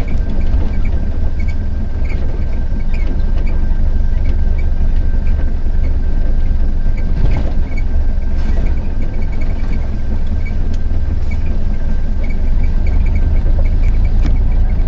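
Vehicle engine running steadily during an off-road ride, with a heavy, constant low rumble and small scattered rattles.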